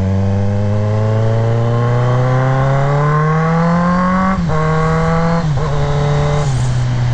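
Kawasaki Z900's inline-four engine accelerating under the rider: the revs climb steadily for about four seconds, then drop in sharp steps as it shifts up through the gears. Wind noise rushes underneath.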